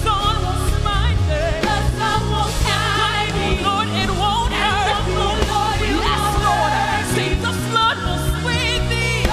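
Live gospel worship music: several voices singing wavering, ornamented lines over a steady low instrumental backing.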